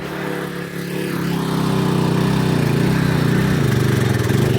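Riding lawnmower's swapped-in Predator single-cylinder engine running in first gear, sagging briefly about half a second in, then picking back up and running steadily.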